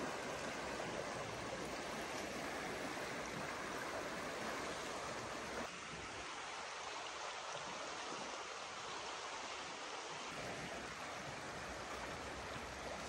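Small creek flowing steadily, a constant rush of running water that drops slightly in level about six seconds in.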